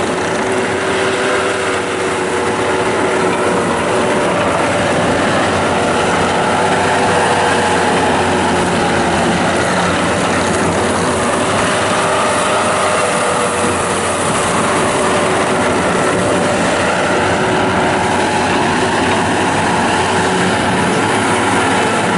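2005 Bobcat T190 rubber-track skid steer loader running and being worked. Its diesel engine holds steady revs under a continuous mechanical clatter and a steady whine.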